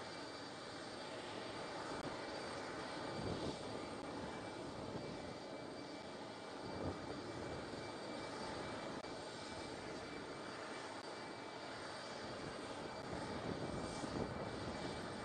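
The jet engines of a Russian Antonov An-124 transport running at idle on the ground: a steady rumble with an even, high turbine whine.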